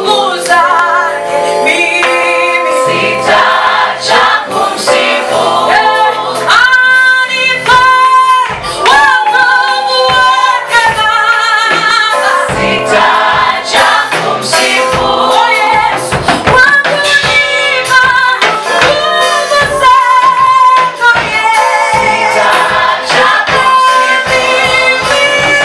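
A choir singing a gospel praise-and-worship song in Swahili, with several voices in harmony.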